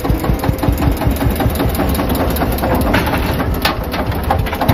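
Farm tractor's diesel engine running steadily with a rapid, even firing beat.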